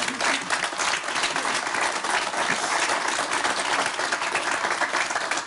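Studio audience applauding: many people clapping together in a steady, dense patter that begins to taper off at the very end.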